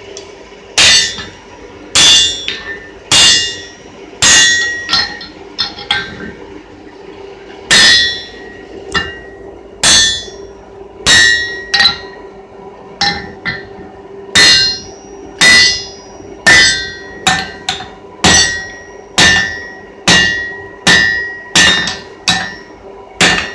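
Hand hammer striking a red-hot axe head on a steel anvil: a ringing clang about once a second, with a few lighter taps between blows.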